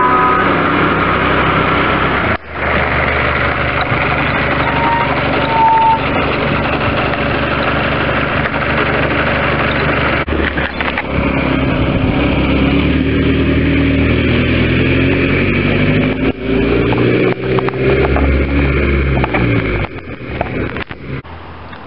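Bedford ice cream van's engine running, its pitch climbing and falling through the second half. The sound drops in level near the end.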